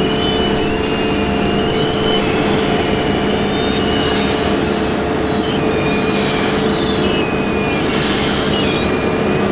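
Heavy road-paving machinery running steadily: a constant diesel engine hum with thin high squealing tones that come and go over it.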